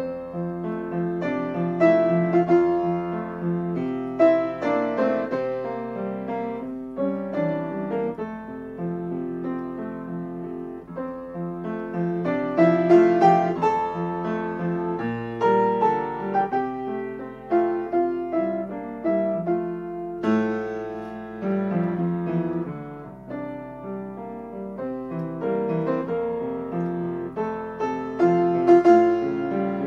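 Solo grand piano playing a late-19th-century Romantic Romanze: a singing melody over a moving accompaniment, swelling and easing in loudness.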